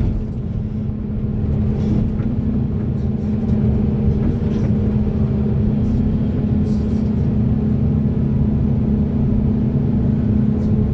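Diesel engine of a large hydraulic excavator running steadily under work, a continuous low drone with a steady hum at one pitch and a few faint knocks.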